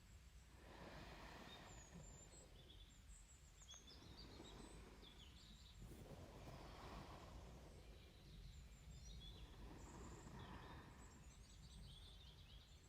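Faint, slow breathing close to the microphone, one soft breath swelling every four or five seconds, with faint birds chirping in the background.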